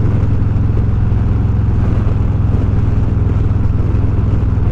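2020 Harley-Davidson Road Glide Special's V-twin engine running steadily at cruising speed, a low, even engine note that neither rises nor falls.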